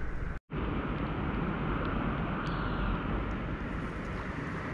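Steady outdoor rumble and hiss with no distinct source, broken by a brief gap of silence about half a second in.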